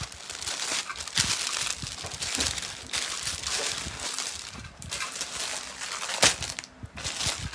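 Clear plastic bags holding folded fabric crinkling and crackling as they are handled and shuffled, in irregular bursts with a sharp, loud crackle about six seconds in.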